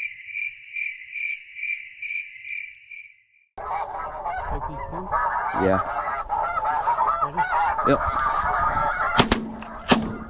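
A high, evenly pulsed chirp, a little over two pulses a second, stops abruptly after about three and a half seconds. A dense flock of snow geese then takes over, calling and honking over wind rumble. Near the end a few shotgun shots crack in quick succession.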